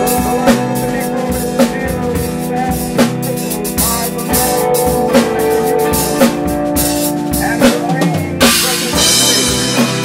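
Live band playing: a drum kit with hard snare hits about once a second, under a bass guitar and held droning notes. A bright wash of high noise swells near the end for about a second.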